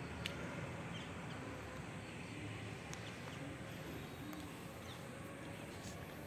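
Steady outdoor background noise with a low hum, a few faint short calls in the distance and occasional light clicks.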